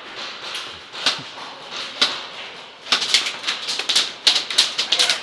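Airsoft guns firing: a few isolated sharp shots, then from about three seconds in a rapid, irregular clatter of shots and BB impacts.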